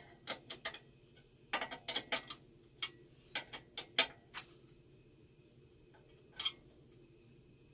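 Irregular light metallic clicks and ticks of a wrench working the handlebar stem clamp on a kid's bike while the handlebars are set and tightened, bunched in the first half with one more click later.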